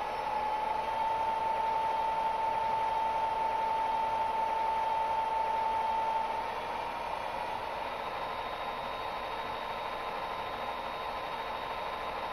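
Diesel locomotive engine sound from a model locomotive's SoundTraxx Econami sound decoder, revved up to a high throttle notch, a steady engine drone with a high whine over it. About six seconds in the whine fades and the sound drops a little.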